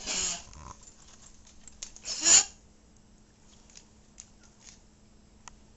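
Old dog with congestive heart failure coughing: a short harsh cough right at the start and a louder one about two seconds in, the cardiac cough of her failing heart.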